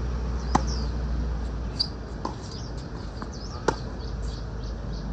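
Tennis rally: a racket strikes the ball sharply twice, about three seconds apart, with fainter pops of the ball bouncing and the far player's strokes in between. Birds chirp faintly in the background.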